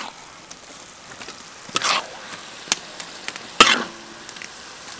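Red curry paste sizzling in a hot metal wok, with a metal spatula scraping and clanking against the pan three times; the loudest clank, about three and a half seconds in, rings briefly.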